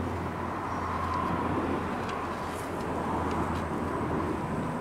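Steady low hum of a vehicle engine running nearby, over even outdoor background noise.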